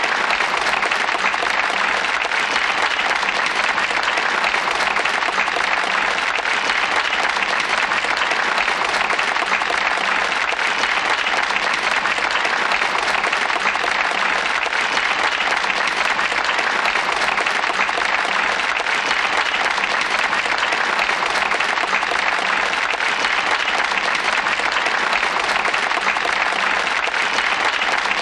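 Crowd applauding: dense, continuous clapping at a steady level, with no single claps standing out.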